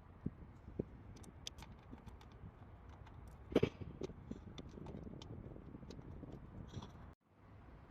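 Scattered light clicks and taps of tools and parts being handled during work on a car engine, with one louder clunk about three and a half seconds in.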